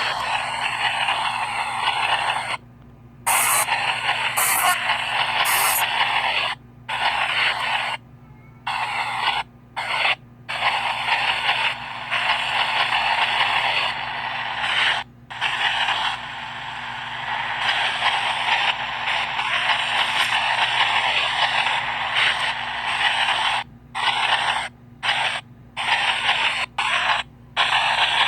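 PXB 07 spirit box sweeping through radio frequencies: a continuous hiss of static, broken by short abrupt dropouts every second or few.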